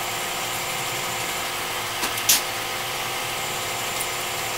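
Hardinge automatic turret lathe running steadily, drilling a tap-drill-size hole in hex bar stock: a steady machine hum. Two sharp clicks come just after two seconds in, the second the loudest sound.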